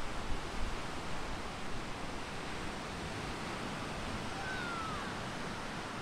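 Ocean surf washing on the beach, a steady even hiss of breaking waves.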